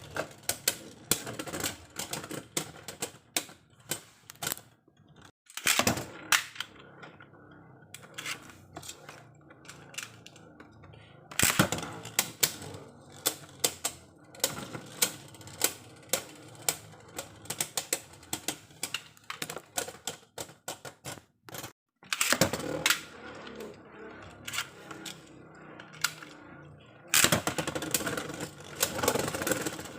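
Beyblade battle tops clashing in a plastic stadium: rapid, irregular clicks and knocks, with denser rattling stretches about six, twelve, twenty-two and twenty-seven seconds in.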